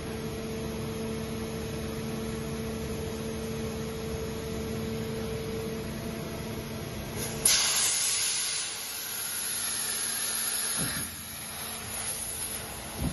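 Steady machinery hum in a large workshop, which stops about six to seven seconds in. Then a sudden loud hiss fades away over about three seconds.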